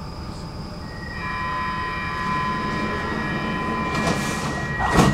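Stockholm metro train running, heard from inside the car: a steady rumble, joined about a second in by a high squeal made of several steady tones, with a sharp clunk near the end.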